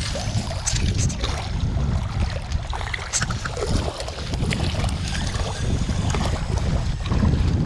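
Wind buffeting the microphone in a steady, gusty low rumble, with a few faint clicks and rustles as a spinning rod and reel are handled.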